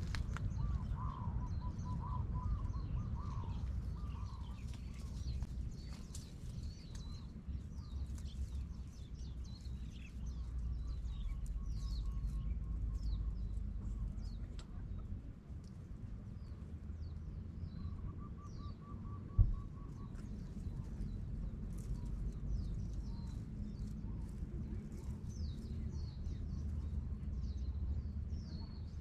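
Small birds chirping and calling outdoors: many short high chirps throughout, and a rapid, lower-pitched trill about a second in and again about eighteen seconds in. A steady low rumble runs underneath, with one sharp knock about nineteen seconds in.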